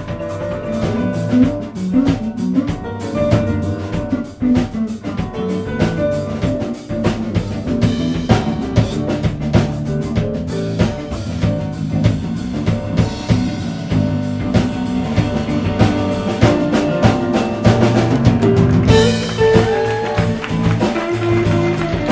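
Live instrumental band playing together: grand piano, electric bass and drum kit in a steady groove.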